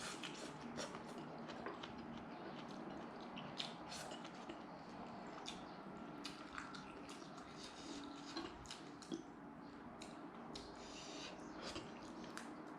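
A person chewing roast chicken: faint wet smacks and clicks, several every second.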